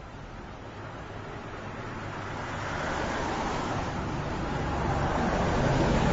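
Street traffic with a road vehicle approaching and growing steadily louder, its tyre noise rising first and a low engine rumble building near the end.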